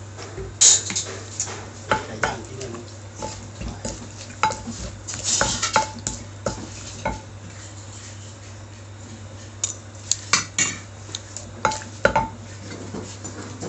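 Utensils clinking and knocking against dishes at an irregular pace while food is mixed, some strikes ringing briefly, over a steady low hum.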